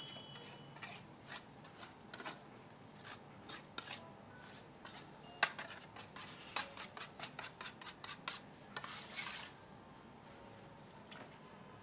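Scraping and rubbing with a run of sharp clicks and light knocks from objects being handled, the loudest knock about halfway through. A longer scrape comes near the end.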